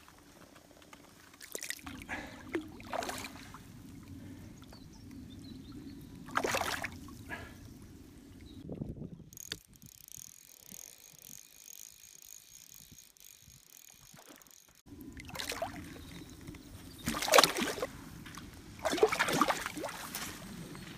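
Splashing of a hooked rainbow trout thrashing at the water's surface as it is played on a fly rod, then water sloshing as a landing net is dipped in to take it. Several sharp splashes, the loudest near the end.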